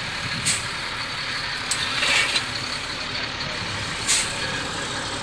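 Heavy truck running, with a steady rumbling noise and short hisses of air about half a second in, around two seconds and about four seconds in.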